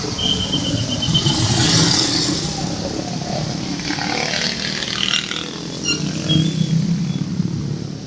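Road traffic with a large bus passing close by: engine rumble and road noise swell about a second or two in, and swell again about six seconds in.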